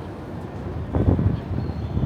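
Wind buffeting the microphone over outdoor street noise, with gusty low rumbling that gets louder about a second in.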